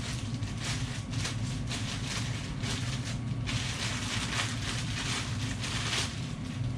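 Plastic packaging crinkling and rustling in irregular, scratchy bursts as it is handled and opened to get at a pair of goggles.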